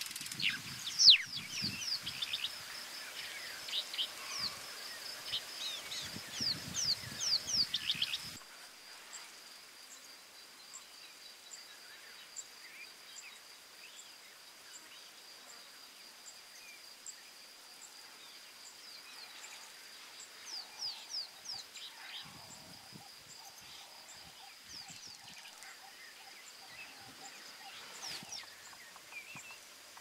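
Birds calling at a waterhole: quick, sweeping chirps over a steady high buzz, busy for the first eight seconds, then dropping suddenly quieter with only a few scattered calls.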